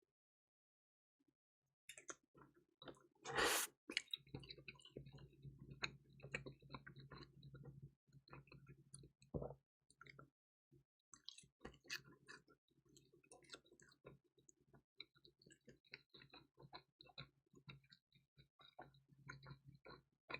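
Close-miked eating of crispy, cheesy pizza topped with dried radish greens and bulgogi: crunching and chewing sets in about two seconds in, with one loud crunch about three and a half seconds in, followed by many small crackles and clicks.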